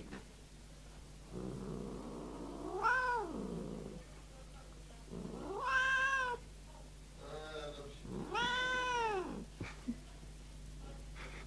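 Angry tabby cat yowling: three long, drawn-out yowls, each rising and then falling in pitch, with rough growling before the first and between the second and third. It is a warning that the cat is ready to attack.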